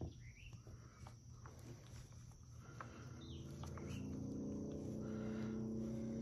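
Birds chirping and a few light clicks of handling. From about halfway in, a steady engine drone grows louder and holds.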